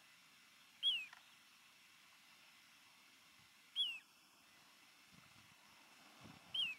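A bird's short, high whistled call sliding downward, given three times about three seconds apart over faint background hiss.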